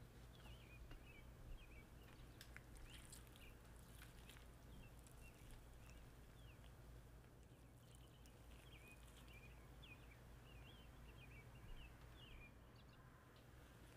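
Faint chirping of small birds, many short quick calls throughout, over a low steady hum, with a few soft clicks in the first few seconds.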